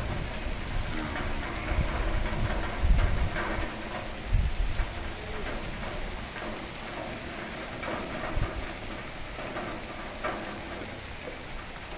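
Heavy rain falling steadily on an open dirt courtyard, with a few low thumps.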